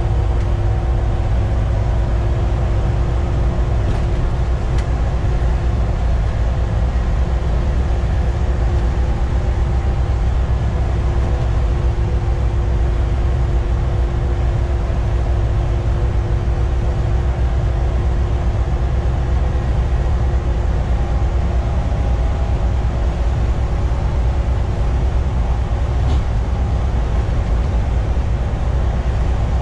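Volvo B7TL double-decker bus cruising at steady speed, heard from the driver's cab: its rear-mounted six-cylinder diesel running under load over a heavy, even road rumble, with a steady whine held throughout.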